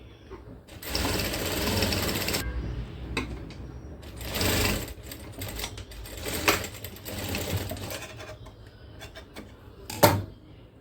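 Industrial sewing machine stitching in spurts: one longer run of about a second and a half, then several shorter runs, with a sharp click near the end.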